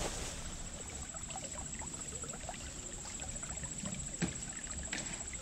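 Small first-order creek trickling over a gravel bed, with a steady high pulsing trill above it and a single sharp knock about four seconds in.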